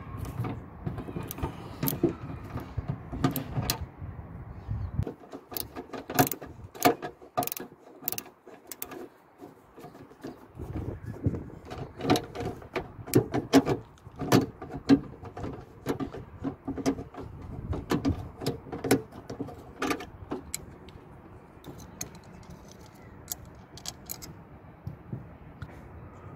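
Irregular sharp clicks, knocks and rattles of a hand driver turning out the two 8 mm bolts that hold a lift gate lock solenoid, with the metal latch and solenoid being handled as they come free.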